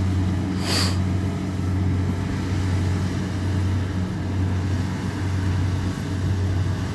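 Kubota DC70 combine harvester running steadily as it cuts rice, a continuous low engine drone. A brief hiss comes about a second in.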